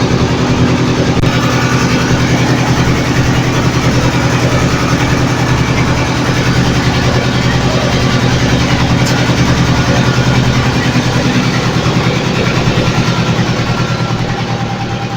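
A boat's engine running steadily with a fast, even pulsing, easing off slightly near the end.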